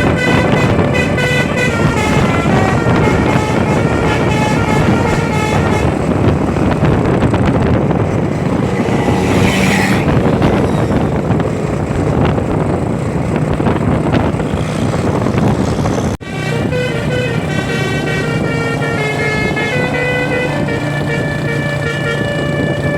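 A bus's telolet basuri horn, a multi-note air horn, plays a quick tune of changing notes over the bus's engine. The tune gives way to engine and road noise with a short hiss in the middle. After a sudden break about two-thirds through, it starts playing again over a steady engine hum.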